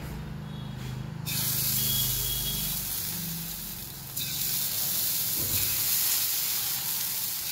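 Paneer cubes frying in ghee on a hot flat iron tawa, a steady sizzle. It starts suddenly about a second in and gets louder again about four seconds in as more pieces go down.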